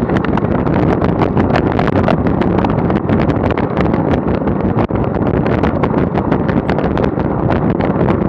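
Steady wind noise over the microphone of a bicycle-mounted action camera moving at speed, broken by many short gusts, with rolling road noise underneath.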